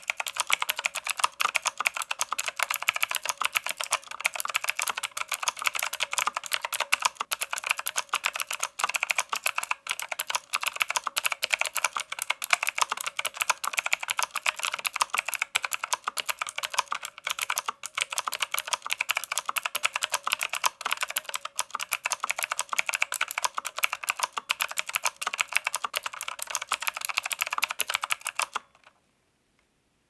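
Steady fast typing on a Royal Kludge RK S108 mechanical keyboard fitted with stock RK Blue clicky switches and round typewriter-style keycaps: a dense, continuous run of sharp key clicks. The typing stops abruptly near the end.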